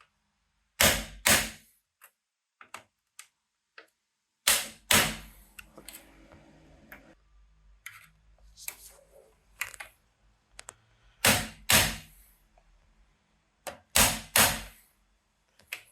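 Rubber mallet striking the back of an INGCO manual impact driver, about seven sharp blows, mostly in pairs half a second apart, with small clicks and scraping between them as the tool is repositioned. The blows turn the bit to loosen a stuck screw.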